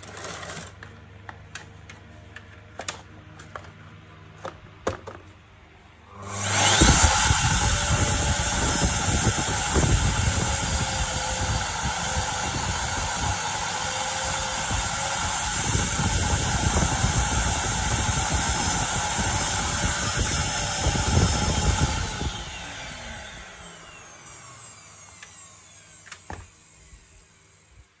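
Electrolux ZCX6400FF CycloneXL vacuum cleaner motor running with the housing open: switched on about six seconds in, it spins up with a rising whine, runs steadily for about fifteen seconds, then is switched off and winds down with a falling whine. A few clicks and knocks of handling come before it starts.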